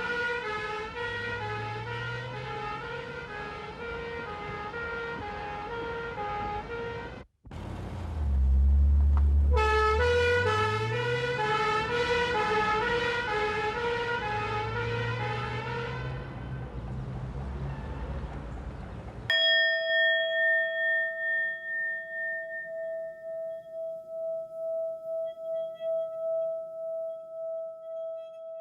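Police car siren cycling rapidly between high and low pitches over a vehicle engine rising and falling, with a brief dropout and a loud low rumble a few seconds later. The siren cuts off about two-thirds of the way in and is replaced by a struck bell-like tone ringing on with a slow pulsing beat as it fades.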